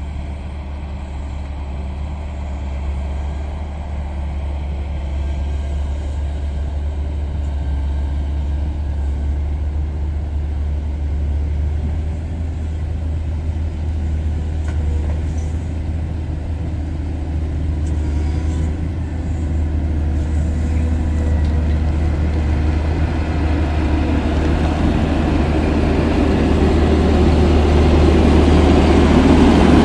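Caterpillar 140M motor grader's diesel engine running steadily while working, growing gradually louder toward the end.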